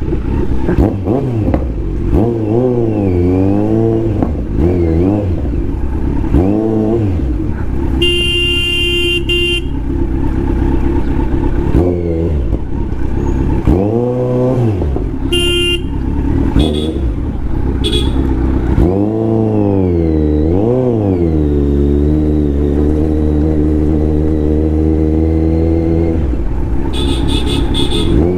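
Kawasaki Z900's inline-four engine and exhaust running and revving, its pitch rising and falling again and again. Vehicle horns honk three times: a long blast about eight seconds in, a short one about fifteen seconds in, and another near the end.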